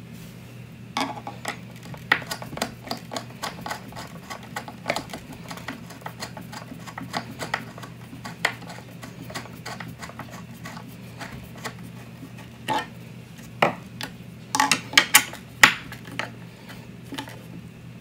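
Hand screwdriver tightening a screw and washer down into a wooden dresser leg: irregular small clicks and scrapes of the tool turning in the screw head, with a quick cluster of louder clicks near the end.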